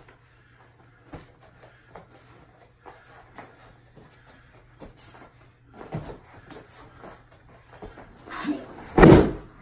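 A judo partner thrown with an ogoshi hip throw lands on the mat with one heavy thud about nine seconds in, the loudest sound. Before it, soft scuffs and rustles as the pair grip and turn in.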